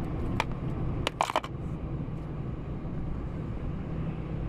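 Lorry engine and road noise heard inside the cab, a steady low drone. A few sharp clicks or knocks come about half a second in and again just after a second.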